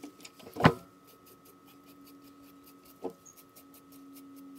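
Disposable razor scraping the hair off the skin of a raw pig's head in faint, quick, repeated short strokes. A sharp knock stands out about half a second in, with a smaller one about three seconds in.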